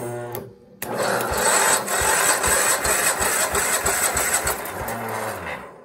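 Kohler KT17 twin-cylinder engine spun over by its electric starter for a compression test, with no fuel: a short burst of cranking, a brief stop, then about five seconds of steady cranking with a regular chugging beat before it cuts off. The engine has strong compression, about 120 PSI on the gauged cylinder, and sounds as if it wants to fire.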